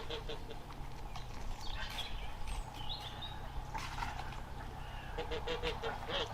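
Farm poultry calling in quick runs of short notes, at the start and again near the end, with a few high chirps in between.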